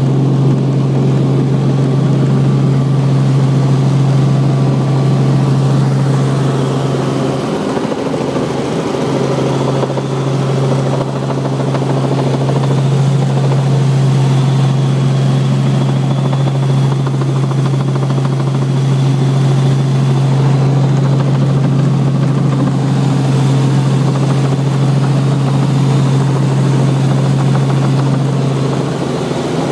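Helicopter engine and rotor running steadily in flight, a loud constant drone with a strong low hum that wavers briefly about eight seconds in.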